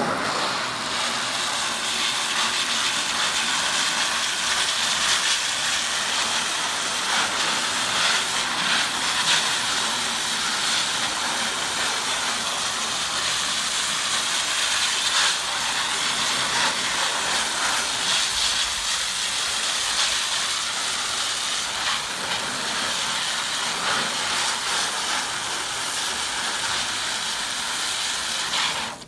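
Garden hose spraying water onto a screen-printing screen's mesh, a steady hiss that cuts off at the end. The water is washing out the green water-soluble blockout and blistering the red lacquer blockout off above it.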